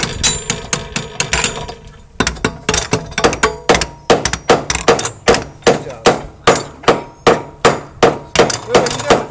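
Claw hammers striking nails into steel joist hangers on a wooden ledger board: sharp metallic blows, each with a short ring. After a brief lull about two seconds in, the blows come steadily at about three a second, from more than one hammer.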